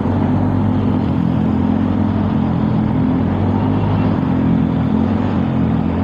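Motor scooter engine running steadily at cruising speed as it rides along, with a constant rush of road noise over it.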